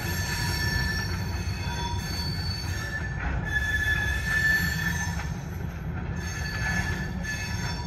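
Freight train wheels squealing against the rails: several steady high-pitched squeals that fade in and out, loudest about four seconds in, over a continuous low rumble of the moving train.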